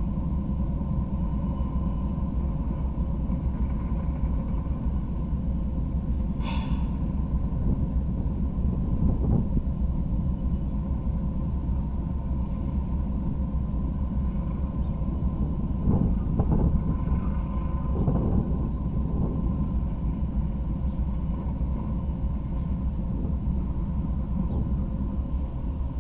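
Norfolk Southern diesel locomotives standing on the track with their engines idling: a steady low rumble that swells briefly about two-thirds of the way through.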